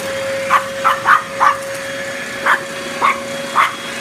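Dog barking, about seven short barks at uneven spacing, over the steady hum of a vacuum cleaner running.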